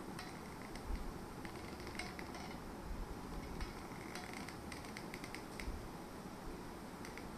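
Hot glue gun being worked by hand: scattered, faint, irregular clicks and creaks from its trigger and glue-stick feed mechanism.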